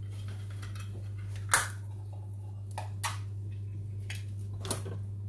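Chili con carne simmering in a covered pan: a few sharp pops from thick sauce bubbling under the glass lid, the loudest about a second and a half in, over a steady low hum.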